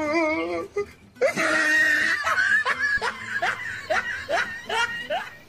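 A man laughing: a drawn-out, wavering sound at first, then after a short break a run of short rising "ha" bursts, about three a second.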